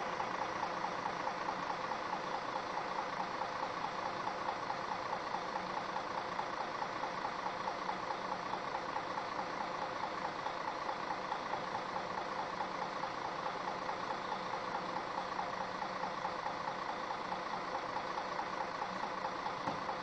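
A Mercedes-Benz Sprinter vacuum truck used for toilet servicing runs steadily while parked. Its sound carries a fast, even pulse.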